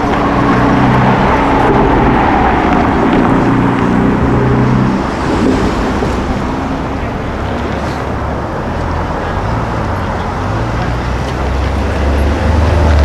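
Car engines running in city street traffic, with a deep engine drone that builds near the end. A siren's falling wail fades out in the first few seconds.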